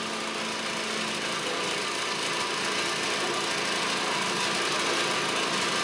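Lambretta scooter's single-cylinder two-stroke engine running steadily, its newly restored engine back in running order.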